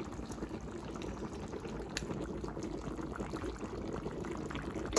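Curry simmering in a metal karahi on a gas burner: a steady, fine bubbling crackle, with one light tick about two seconds in.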